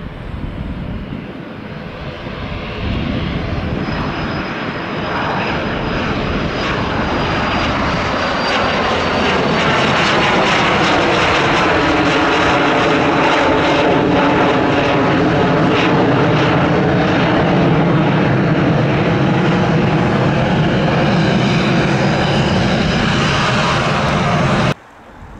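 Pilatus PC-24's twin Williams FJ44-4A turbofans at takeoff power as the jet lifts off and climbs past. The jet roar builds over the first few seconds and then holds loud, with a thin high whine sliding slightly lower in pitch. The sound cuts off suddenly just before the end.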